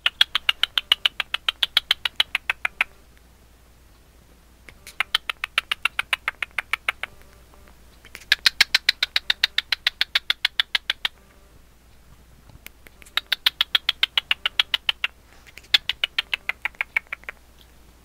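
Cockatiel at a mirror making five runs of rapid clicking, about eight clicks a second, each run lasting two to three seconds with short pauses between.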